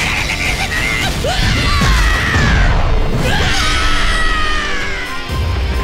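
Animated characters screaming as they are blasted off into the sky: two long cries falling in pitch, over loud dramatic action music.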